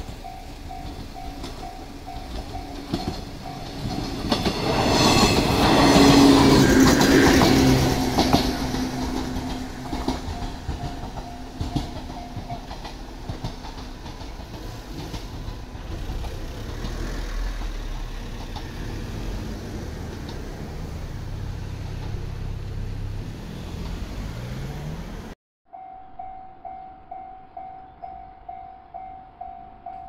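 Japanese level-crossing bell ringing in a rapid steady beat as a yellow JR electric train runs past close by, the train loudest about five to eight seconds in. After the bell fades, a train's motors run as it comes along the track. After a cut near the end, another crossing's bell rings.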